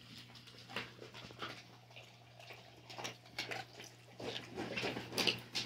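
Dogs crowding and sniffing at close range: scattered soft clicks and scuffles, busier and louder in the second half, over a steady low hum.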